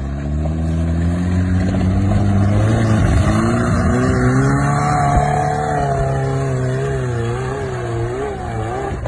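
Off-road vehicle's engine revving hard under load while climbing a steep hill. Its pitch rises and wobbles up and down, with a brief break about three seconds in.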